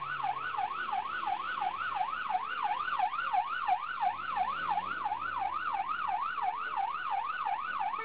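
Police car siren in a fast rising-and-falling yelp, about three sweeps a second.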